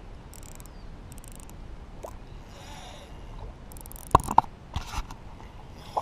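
Handling noise from a spinning rod and reel held close to the microphone: a few faint clicks, then a pair of sharp knocks a little after four seconds in, smaller knocks just after and one more at the end, over a faint outdoor background.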